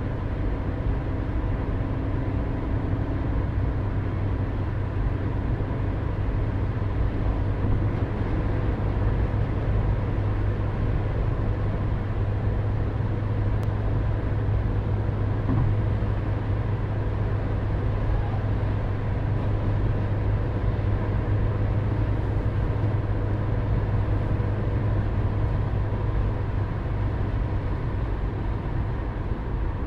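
Steady in-cabin driving noise of a car at highway speed: a continuous low drone of road and engine noise with a faint steady hum above it.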